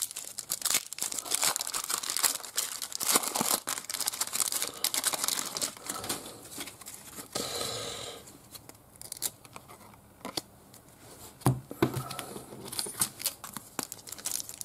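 Foil trading-card pack wrapper crinkling and tearing, with cards rustling as they are handled. Dense crackling for the first half, then quieter handling with a couple of sharp taps about two thirds through.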